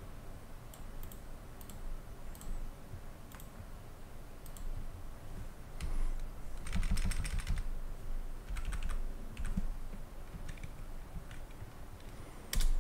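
Typing on a computer keyboard: scattered keystrokes, with quicker runs of keys about six and nine seconds in.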